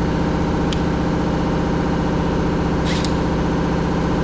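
A steady, even mechanical hum like an engine idling, with a light click about a second in and a quick double click near three seconds.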